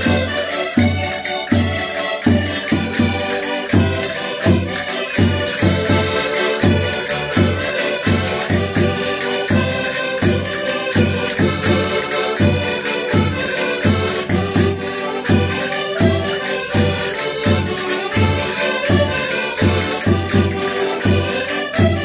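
Several Portuguese concertinas (diatonic button accordions) playing a lively folk dance tune together, with a steady pulsing bass beat.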